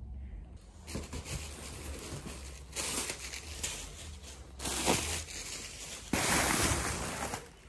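Cardboard box being opened by hand and its plastic air-cushion packing rustling and crinkling, in a few noisy bursts, the longest near the end.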